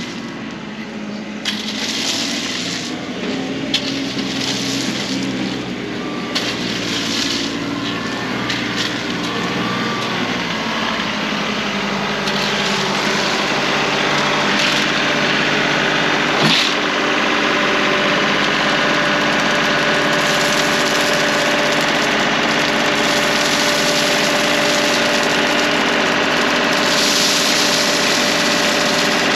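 Compact tractor engine running steadily, with one sharp knock about halfway through.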